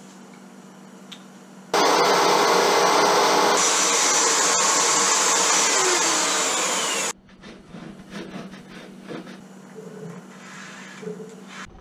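Handheld electric router switched on about two seconds in, running at full speed for about five seconds as it cuts along the edge of a wooden thwart, then stopping suddenly. A steady high whine joins in partway through the cut. Lighter scraping and handling sounds of hand tools on the wood follow.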